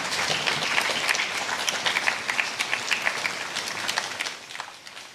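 Audience applauding after a speech, the clapping thinning out and dying away about four seconds in.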